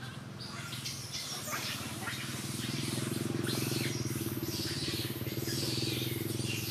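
A steady low motor drone that grows louder about two seconds in, with many short high squeaks or chirps over it.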